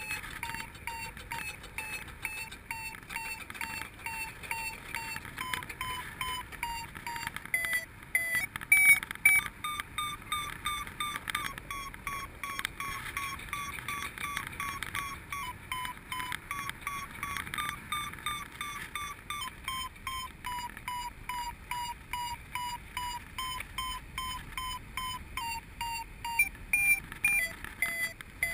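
Paragliding variometer beeping: a running train of short beeps, about two a second, whose pitch steps up and down, rising with the climb rate as the wing gains height in lift. Behind the beeps is a steady rush of wind.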